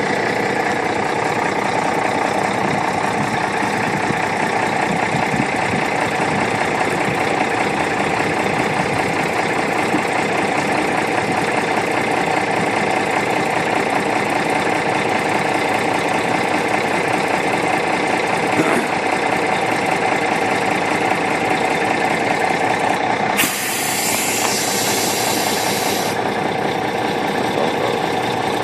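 Boat-hauling truck's engine idling steadily, with a hiss lasting about three seconds near the end.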